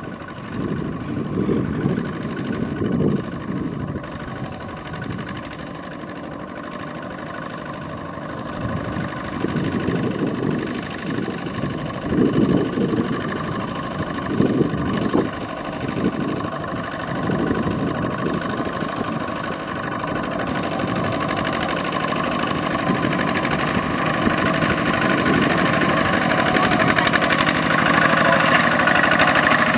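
Single-cylinder diesel engine of a two-wheel walking tractor running steadily under load while pulling a loaded rice trailer through mud and water, growing louder toward the end as it comes closer.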